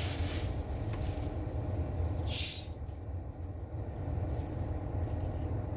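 A cold Sprite is opened with one short, sharp fizzing hiss about two and a half seconds in. Under it runs the steady low hum of a car idling with its air conditioner on.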